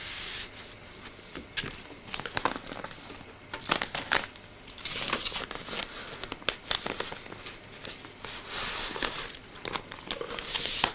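Clear plastic LP outer sleeve crinkling and rustling as a cardboard record jacket is slid and handled inside it, with scattered small clicks and louder rustles about halfway through and again near the end.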